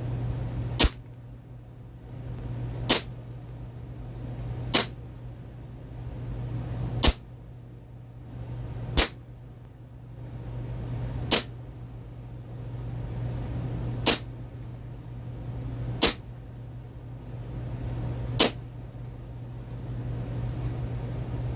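ASG Steyr L9-A2 CO2 blowback airsoft pistol firing 0.20 g BBs: nine sharp single shots about two seconds apart. A steady low hum runs underneath.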